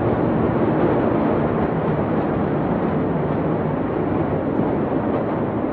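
Steady, noisy low rumble of the port warehouse fire heard from across the city, slowly easing off.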